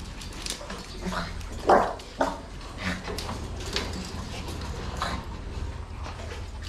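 A dog gives two short barks in quick succession about two seconds in, among scattered metallic clinks of wire cage doors being handled.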